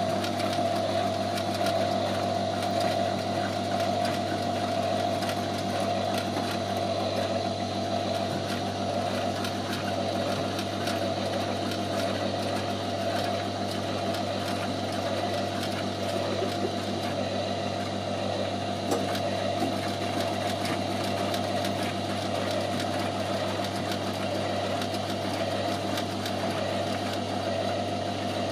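Electric drive mechanism of an animated model bakery running steadily: a low motor hum with a fast, fine clatter of the gears and linkages that move the baker figures.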